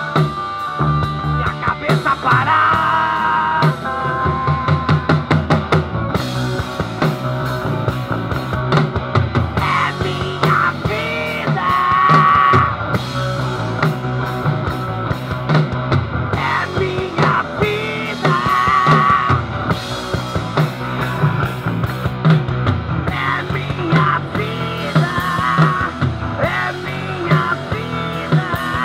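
Rock band playing: electric guitars and bass guitar over a drum kit keeping a steady beat.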